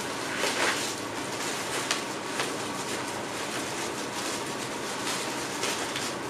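Plastic bubble wrap crinkling and rustling as it is handled and cut open with scissors, in irregular crackly bursts.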